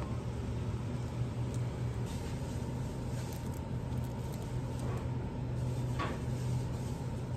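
Steady low hum of a convenience store's refrigerated display cases, with faint ticks and one light click of plastic packaging being handled about six seconds in.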